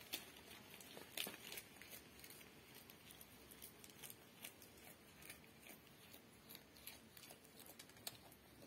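Faint rustling of a pile of cut leafy branches with scattered crisp ticks and crackles, the strongest just after the start and about a second in, as goats move among the leaves and browse on them.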